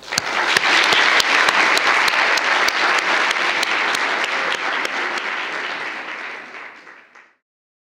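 Audience applauding, many hands clapping at once, tapering off near the end and then cut off abruptly.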